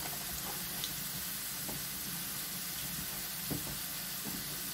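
Potato and carrot sticks frying in hot olive oil in a wok: a steady sizzle with a few faint crackles.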